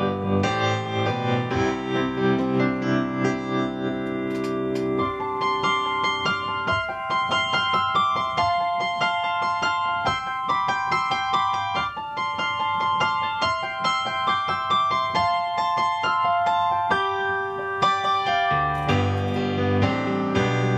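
Freshly restored Yamaha CP-80 electric grand piano played with both hands: chords over a bass line, then quicker notes higher up with the bass mostly dropping out for a long middle stretch, and fuller low chords returning near the end.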